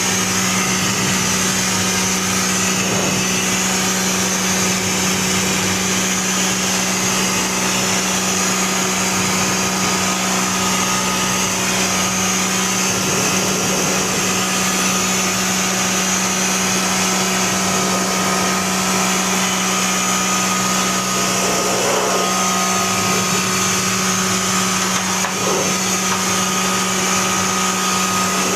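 A machine with an electric motor running steadily, a constant low hum with a hiss over it.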